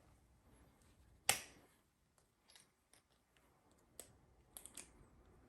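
The plastic head of a clothing security tag cracking as it is crushed in the jaws of multi-tool pliers: one sharp crack about a second in, then a few smaller clicks and snaps near the end as the head breaks through and pops off.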